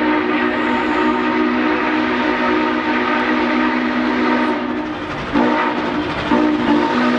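Norfolk and Western 611 steam locomotive's whistle sounding a chord of several tones: one long blast, a short one about five and a half seconds in, then another long one starting near the end. This is the grade-crossing whistle signal as the engine approaches the crossing.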